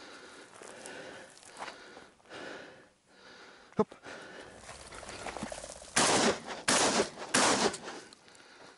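Three shotgun shots in quick succession, about two-thirds of a second apart, a little past halfway, fired at chukar partridges flushed from a pointer's point. Before them, faint footsteps and rustling through dry grass.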